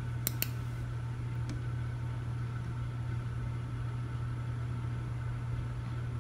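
Steady low machine hum, like an idling engine or a fan, with a few light clicks in the first second and a half.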